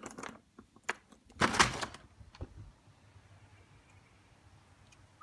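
Key turning in the lock of a uPVC patio door and the lever handle clicking, with a few sharp clicks, then the door pulling open with a short loud rush of noise about a second and a half in.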